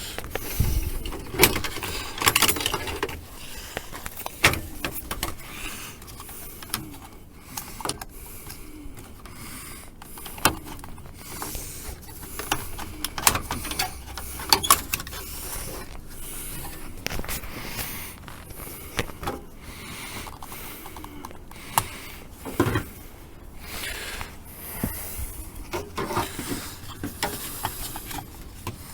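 Screwdrivers and hands working at plastic dashboard trim to pry out a headlight switch: scattered sharp clicks, knocks and scrapes of metal tool on plastic, with quieter handling in between.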